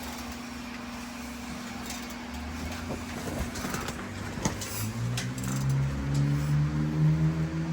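A motor starts about five seconds in, its hum rising in pitch and then holding steady, over a low background hum and a few light clicks and taps of tools.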